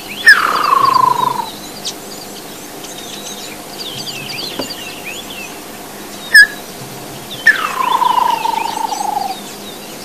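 A person whistling an imitation of a woodland kingfisher's call, twice: a sharp high note dropping into a long descending trill. A sharp click falls between the two calls, and small birds chirp faintly behind.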